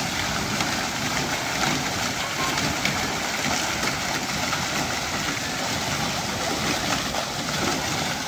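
Steady rush of water pouring from a play structure's overhead fountain and splashing onto the slide and into the pool.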